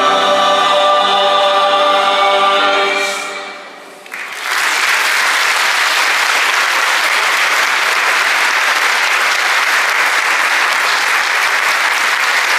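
Mixed choir with strings and keyboard holding the closing chord of a piece, which fades out about four seconds in. Then steady audience applause starts and continues.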